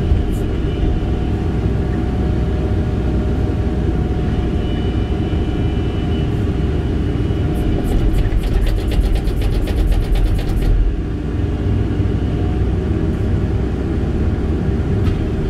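An 8-tonne Kobelco excavator's diesel engine running under load, powering a hydraulic earth auger that drills a pier hole. About eight seconds in, a rapid, evenly spaced rattling ticking joins it for about three seconds as the engine note rises a little.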